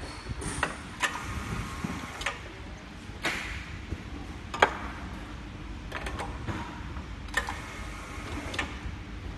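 Semi-automatic round-bottle labeling machine at work on aerosol cans: irregular sharp clicks and clacks as the metal cans are set into the rollers and lifted out, the sharpest about four and a half seconds in. The machine runs with a faint steady whine in stretches between the clicks.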